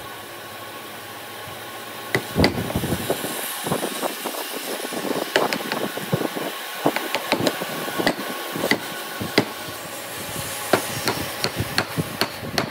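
Steel wood chisel cutting a notch into a timber block: an irregular string of sharp knocks and cracks as the blade bites in and chips split away, over a steady background hiss.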